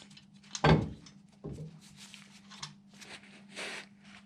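A steel crossmember being handled and offered up under a car body: two dull metal knocks, the first about a second in, the second just after, then light clinks and handling noises over a steady low hum.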